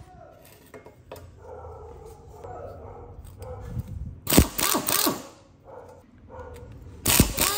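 Powered screwdriver with a long bit running in two short bursts, a little past halfway and near the end, backing screws and bolts out of a two-stroke brush cutter engine's aluminium crankcase and finned cylinder. Quieter handling of the casing comes between the bursts.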